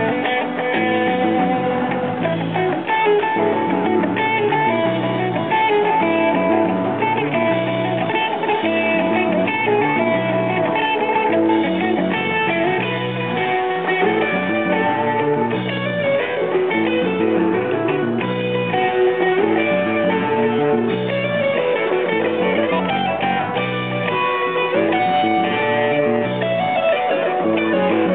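Live jam-band rock with guitar prominent, playing continuously at a steady volume.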